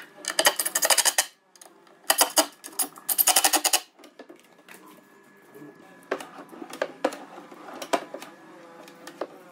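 Three short bursts of rapid mechanical clicking in the first few seconds, then scattered light knocks and clicks as drawer fronts are pressed into place on a cabinet.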